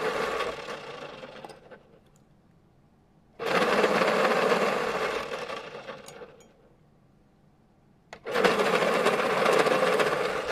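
Pencil sharpener grinding pencils in three bursts. The first is already running and fades out early; the next two start suddenly about three and a half and eight seconds in, each dying away over a couple of seconds, with near-quiet gaps between.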